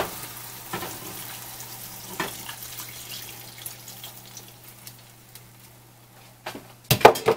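Water poured from a glass measuring cup into a hot pan of sautéed carrots, jalapeños and onion in vinegar; the frying sizzle fades steadily as the liquid goes in. A few sharp knocks near the end.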